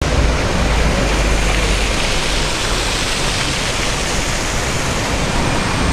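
Heavy rain falling: a loud, steady hiss with a low rumble underneath.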